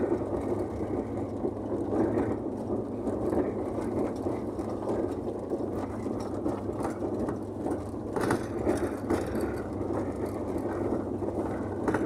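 Cab noise inside a Volkswagen Kombi motorhome driving up a dirt road: steady engine and tyre noise over gravel, with many small knocks and rattles.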